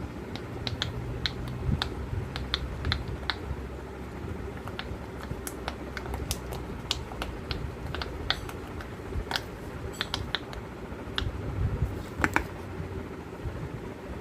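Silicone pop it fidget toy having its bubbles pressed one after another, each pop a short, sharp click, coming irregularly at about one to three a second.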